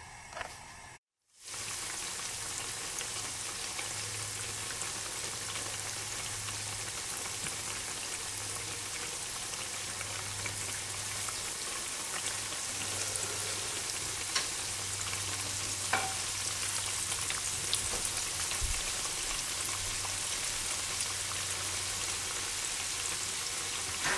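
Tempura-battered eggplant slices frying in hot oil: a steady sizzle with a few scattered pops.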